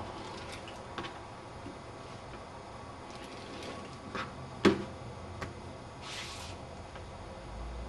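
Rubber stamp sheets and a rotary cutter handled on a plastic cutting mat: a few soft clicks and taps, one sharper knock about halfway through, and a brief swish a little later, over a steady low hum.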